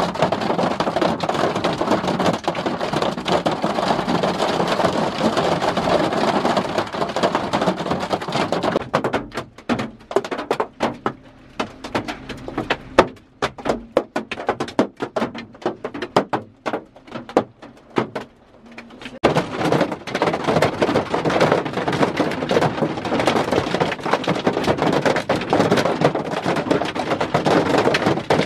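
Hail drumming densely on a vehicle's roof and windscreen, heard from inside. About nine seconds in it thins to separate sharp hits of single hailstones for some ten seconds, then thickens into dense drumming again.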